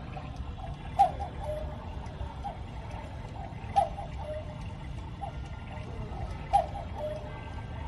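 Clock ticking: soft mechanical ticks with a sharper, louder click about every three seconds, three times.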